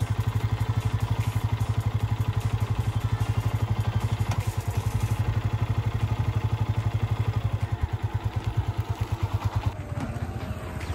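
Yamaha R15's single-cylinder four-stroke engine idling with an even, rapid putter of about ten beats a second, the bike standing still. The engine sound drops away abruptly near the end.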